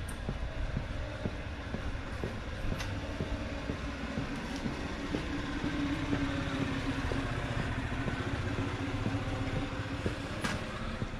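Footsteps on an asphalt lane, with the low, steady hum of a passing vehicle that swells midway and then eases.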